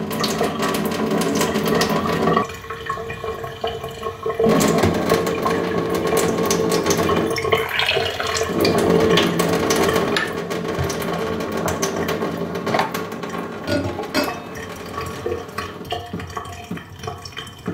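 A thin stream of reverse-osmosis-filtered water runs from a filter tap into a wine glass and a stainless steel sink, with a few clinks of glass.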